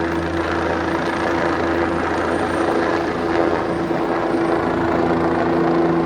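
Helicopter in flight: a steady, unbroken drone of engine and rotor.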